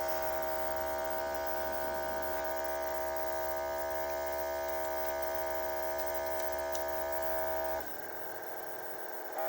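Small airbrush compressor running with a steady hum, air blowing through the airbrush. About eight seconds in it drops quieter and its tone changes for about a second and a half, then comes back up near the end.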